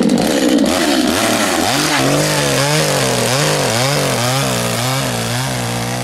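Petrol two-stroke chainsaw running at high revs just after starting. About two seconds in, the throttle is pulsed up and down about every half second, and then the engine settles to a steadier, lower speed near the end.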